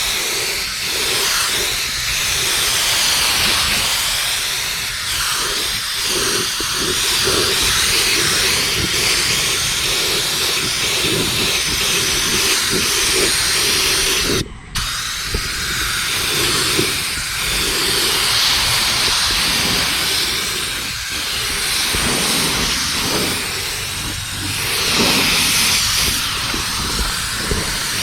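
Paint being sprayed onto the skid steer: a loud, steady spray hiss, with a very short break about halfway through.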